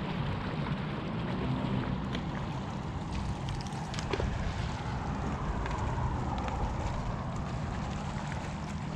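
Wind buffeting the microphone in a steady low rumble, over a haze of open-water noise, with a few faint clicks.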